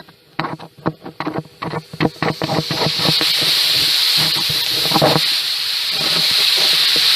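Air hissing out of a leaking joint at the upper end of an Edex car muffler, picked up through a plastic probe hose while a vacuum cleaner pressurises the exhaust through the tailpipe. The first couple of seconds are scraping and knocking as the hose is moved over the muffler; then a loud, steady hiss begins as the hose reaches the leak.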